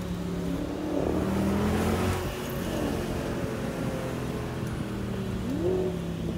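Sports car engine running with a steady note, blipped twice: the pitch rises sharply about a second in and again near the end.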